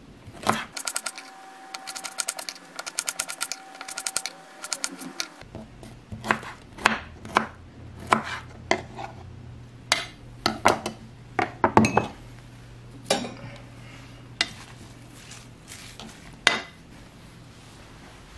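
Kitchen knife chopping tomato on a wooden cutting board: a quick run of taps, about six or seven a second, for the first few seconds. Then slower, separate louder knocks and clinks of the knife on the board and against a bowl as the pieces are scraped in.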